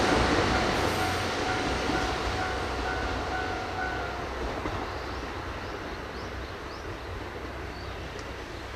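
Diesel train moving off and fading away, its engine rumble and running noise dying down steadily, with a thin steady whine that stops about halfway. Faint bird chirps come through near the end.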